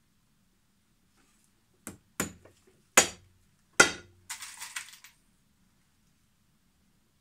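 Small hammer driving a hobnail into a boot's leather sole: four sharp strikes about two seconds in, a light tap followed by three harder blows, the last two loudest. A brief clinking rattle follows half a second later.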